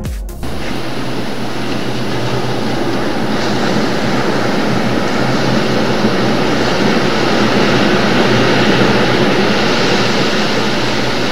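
Steady rushing noise of wind and open sea, even and without a distinct beat, growing a little brighter about three seconds in. The music ends just before it begins.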